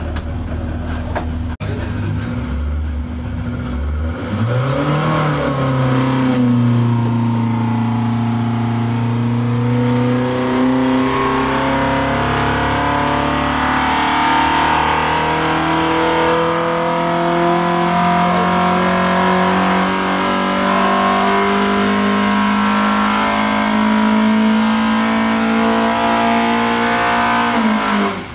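Ford Pinto 2.1-litre four-cylinder engine on twin Weber carburettors, running on an engine dyno. After a short blip about five seconds in, it pulls under load with its pitch climbing steadily from around 3,700 to nearly 6,800 rpm, as in a dyno power run. The sound then drops off sharply as the throttle is closed near the end.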